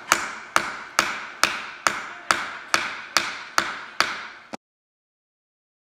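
Steel hammer striking a metal rivet setter to set rivets in a leather holster on a granite slab. The blows are evenly paced, about two a second and ten in all, each with a short metallic ring, until the sound cuts off abruptly about four and a half seconds in.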